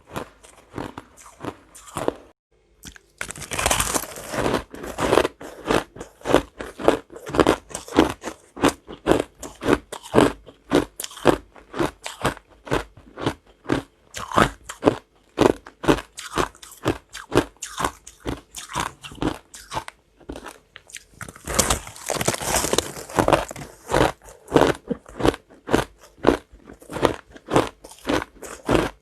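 Repeated crunching in a steady rhythm of about two strokes a second, with two longer, louder crunching bursts, one a few seconds in and one about two-thirds of the way through.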